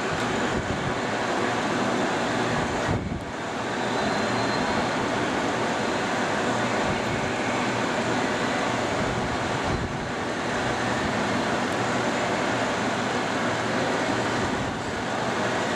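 Leblond Model NI heavy-duty engine lathe running smoothly at its top spindle speed of 400 RPM, the geared headstock and 24-inch four-jaw chuck spinning with a steady mechanical running noise. The noise dips briefly about three seconds in.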